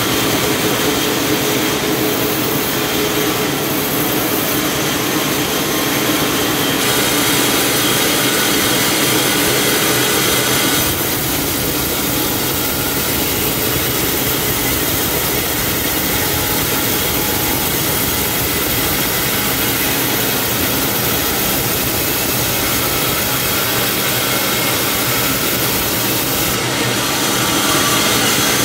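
Band sawmill running steadily as its blade saws lengthwise through a large log, a loud continuous machine and sawing noise.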